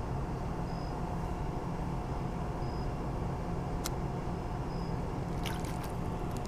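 Steady low outdoor background rumble, with short high chirps every second or two and a few sharp clicks about four seconds in and again near the end.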